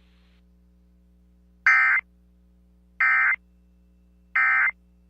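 Emergency Alert System end-of-message tones: three short, identical bursts of shrill digital SAME data tones, about 1.3 s apart. They mark the end of the severe thunderstorm warning broadcast.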